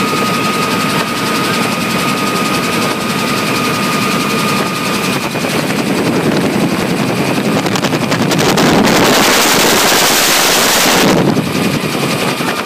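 Helicopter in flight heard from inside the cabin: a steady rotor and engine drone with a fast beating rhythm and a steady high tone. About halfway through the tone drops out and a rush of air noise builds, loudest for a couple of seconds near the end, then falls back.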